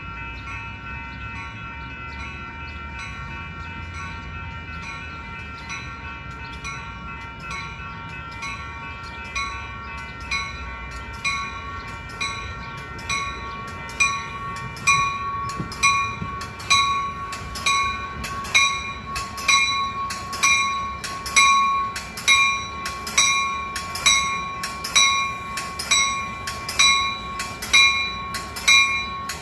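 Railroad warning bell ringing with evenly spaced strikes about once a second, growing louder from about halfway in.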